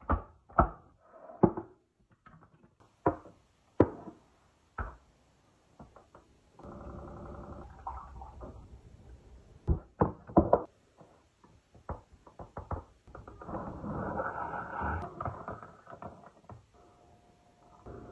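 Kitchen-counter handling sounds: a pod coffee machine's lid clunking shut and jars and a steel canister knocked down on the countertop, a string of sharp clicks and clunks. About two seconds of steady motor hum comes in near the middle, then more knocks, and a few seconds of dense rattling noise later on.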